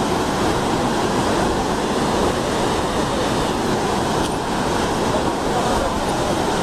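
Floodwater rushing steadily, an even, unbroken wash of noise.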